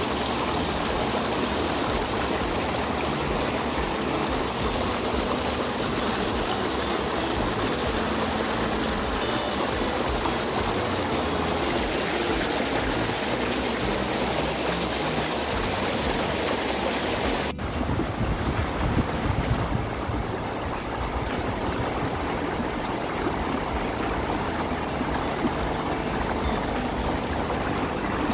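Shallow mountain stream running over rocks and between boulders, a steady rush of water; the sound changes abruptly a little more than halfway through.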